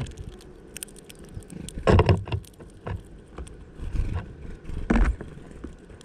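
A male Eurasian bullfinch pecking and shifting about on seeds inside a plastic-bottle feeder: scattered clicks and taps of beak and feet on the seeds and plastic, with two louder knocks about two and five seconds in.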